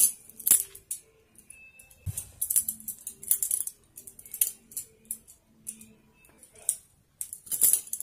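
Practice balisong (butterfly knife trainer) being flipped: its handles and blade clack against each other in quick, irregular bursts of clicks, with the densest bursts just before the end.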